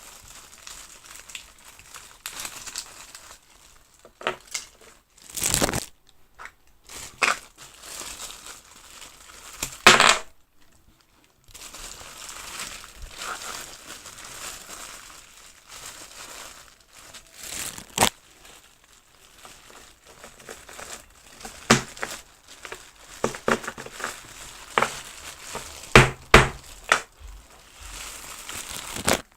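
Plastic crinkling, with scattered sharp clicks and taps, from hands working the packets and plastic parts of a Popin' Cookin' DIY candy kit; the loudest crinkle comes about ten seconds in, and a quick cluster of clicks comes near the end.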